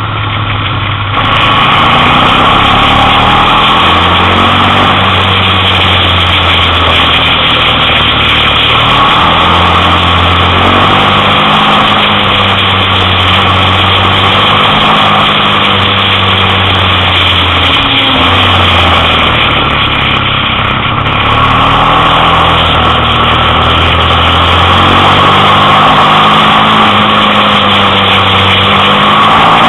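Motorcycle engine running at speed, heard from on board the bike, its note rising and falling and stepping to a new pitch every few seconds as the rider shifts gears and works the throttle through bends, over a steady rush of noise.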